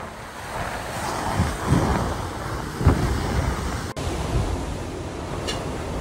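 Storm wind blowing in strong gusts, buffeting the microphone with low thumps. About four seconds in it breaks off sharply and gives way to a steadier rushing wind noise.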